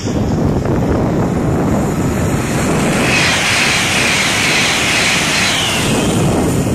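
Wind buffeting the microphone throughout, with a TransPennine Express Class 802 bi-mode train passing at speed from about three seconds in. It is heard as a rushing hiss of wheels and air that dies away about six seconds in.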